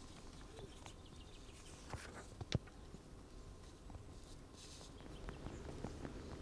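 Faint outdoor ambience with a few soft clicks about two seconds in and again half a second later, and a brief hiss a little past the middle.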